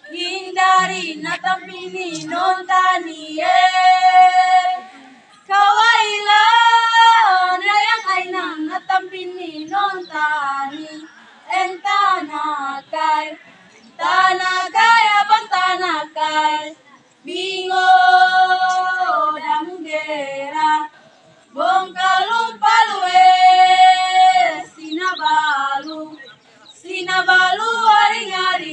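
A group of female voices singing a traditional song unaccompanied, in phrases of a few seconds separated by short breaks, often ending on a held note.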